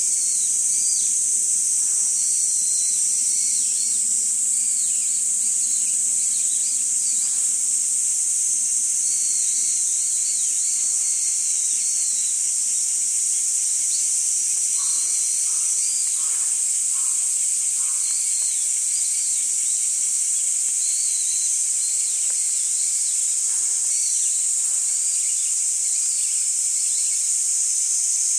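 Steady high-pitched chorus of insects, like crickets, with short high chirps repeating throughout.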